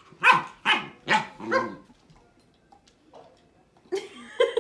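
Puppy barking, four short barks in quick succession in the first two seconds, then a pause.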